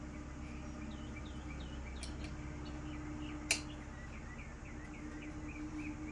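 A small bird singing a run of quick repeated chirping notes over a steady low hum, with one sharp click about three and a half seconds in.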